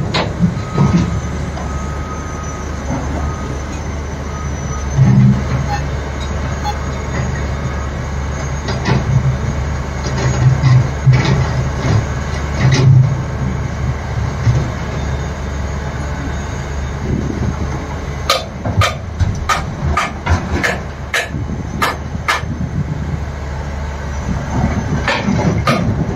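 Heavy diesel engines of a Tata Hitachi 470 excavator and dump trucks running with a steady low rumble that swells now and then as the machine works. There are scattered knocks, and a quick run of sharp knocks about two-thirds of the way through.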